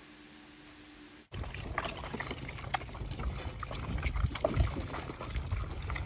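Pigs eating strawberries from a trough, a dense run of wet chomping, smacking and slurping that starts suddenly about a second in, after a faint steady hum.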